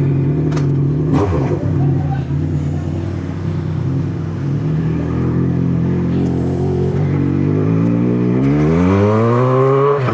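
Yamaha XJ6 motorcycle's inline-four engine idling steadily. About eight and a half seconds in it revs up with a rising pitch as the bike pulls away.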